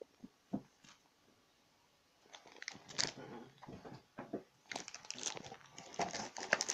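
Clear plastic bag of felt-tip pens crinkling as it is handled. A few faint clicks come first, then a quiet gap. Irregular crackling starts about two seconds in and grows louder near the end.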